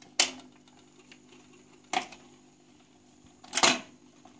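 Dansette record player humming steadily, with three sharp mechanical clicks from its mechanism, spaced about one and a half seconds apart.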